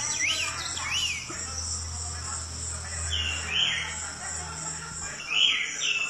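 Caged Pekin robin calling: two short rising-and-falling whistled notes in the first second, then harsher falling notes about three and a half and five and a half seconds in, the last the loudest. A steady high hiss and a low hum run underneath.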